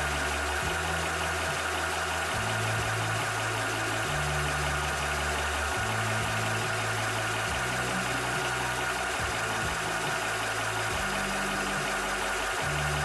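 Cobra 300 bar high-pressure PCP air compressor running steadily, with a low hum underneath that shifts between pitches every second or two.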